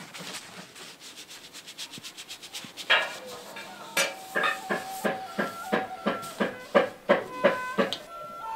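A wide paste brush scrubbing quickly back and forth over paper on a wooden floor. From about three seconds in come louder rhythmic knocks, two to three a second, and from about four seconds in a flute holds long notes under them.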